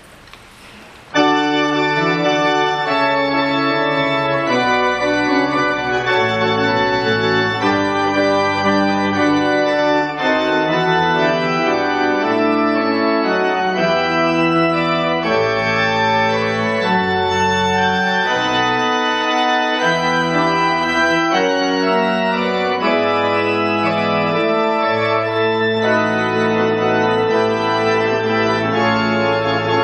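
Organ postlude: sustained chords of an organ begin about a second in and change every second or two at a steady level.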